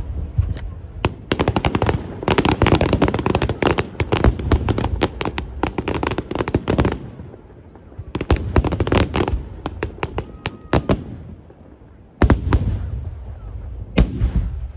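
Aerial fireworks bursting overhead: a long run of rapid bangs and crackling, a short lull, more bursts, then a couple of single loud booms near the end.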